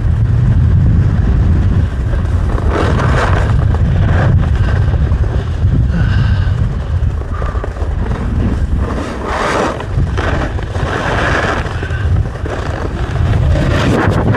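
Wind buffeting the microphone while sliding downhill on snow, with swelling hiss and scrape of edges carving the snow every second or two.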